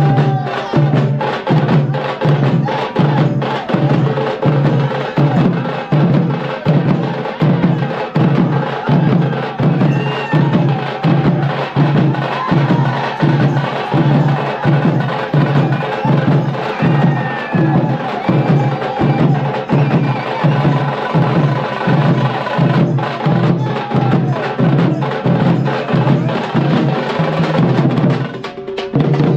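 Veeragase folk drum ensemble, led by the karade drum, beating a steady driving rhythm of about two strong beats a second with sharp strokes between them. The beat drops away briefly just before the end.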